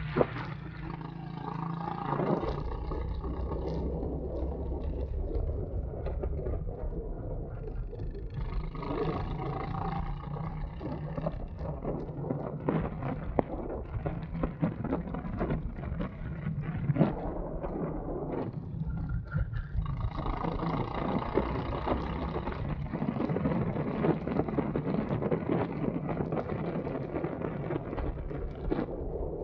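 Go-kart engine running on track, its note swelling and fading as the kart accelerates and lifts through the corners, over a constant low rumble.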